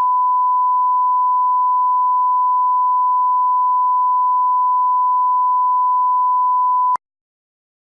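1 kHz line-up test tone sounding with television colour bars, the reference tone used for setting audio levels: one steady pure tone that cuts off abruptly with a click about seven seconds in.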